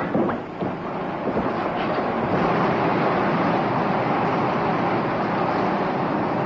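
Steady rushing noise of a motor launch under way: engine and water wash blended into an even drone.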